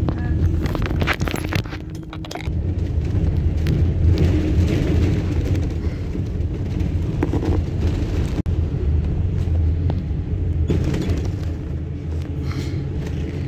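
Double-decker bus running along the road, heard from the top deck: a steady low engine and road drone, with a few sharp rattles and knocks from the bodywork.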